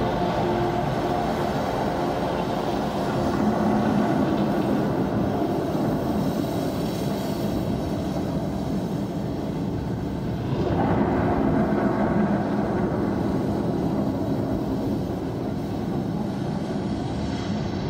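The light show's soundtrack played over outdoor loudspeakers: a loud, steady rumbling sound effect with low held tones underneath, swelling about ten seconds in.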